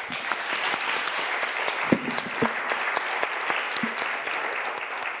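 Audience applauding, with a few sharper single claps standing out from the steady clapping.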